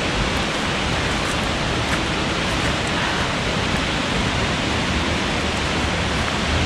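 Waterfall close by: a steady, loud rush of falling water.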